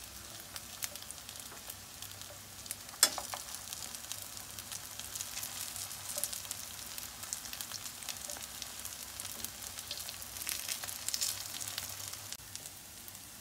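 Sabudana cutlets sizzling and crackling as they shallow-fry in hot oil in a pan, while a wooden spatula turns them over. One sharp knock about three seconds in.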